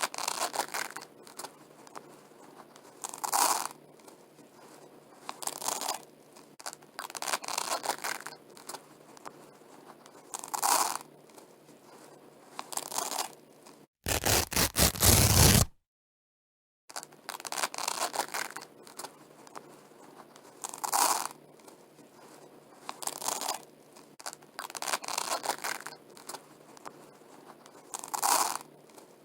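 Velcro hook-and-loop fastener being pulled apart by hand, a short rasping rip every second or two. About halfway through comes one much louder, fuller rasping burst, then about a second of dead silence before the rips resume.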